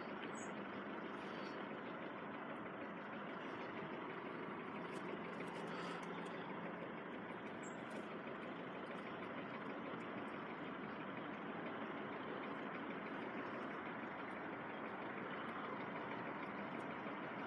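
Steady, even vehicle noise with no distinct events and no alarm tones.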